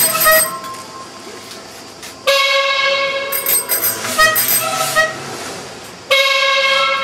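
Piano struck hard twice, about two seconds in and again near the end, each time with a loud sudden chord that rings and slowly dies away. Short whistle tones and small bells sound over the ringing piano.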